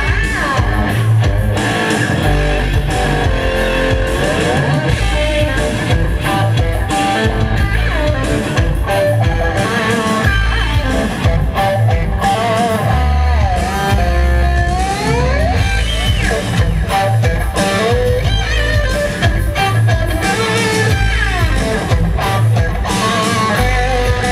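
Electric guitar played live through an amplifier, with many notes bending and sliding up and down in pitch, over a loud band backing with a heavy low end.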